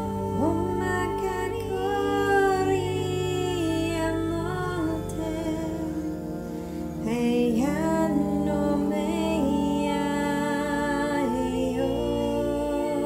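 Meditation music of layered wordless vocal toning in light language, the voices holding notes and sliding between them, over steady low drone tones. A sweeping upward vocal glide comes about seven seconds in.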